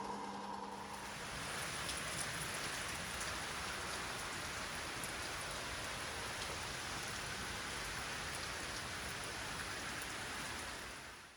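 Water hissing steadily into the drum of a Gorenje PS 060 A washing machine, a rain-like spray with no motor hum, cutting off near the end as the water stops.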